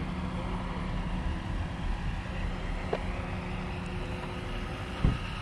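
Vehicle engine running at low speed, a steady low hum with road noise, and a single thump about five seconds in.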